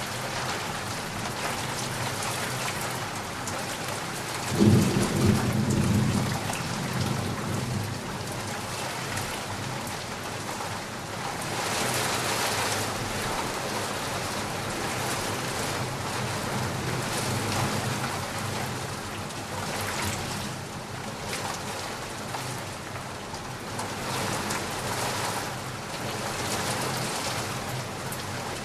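Heavy rain falling steadily, with a sudden loud thunderclap about five seconds in that rumbles away over a couple of seconds. The rain swells and eases in waves.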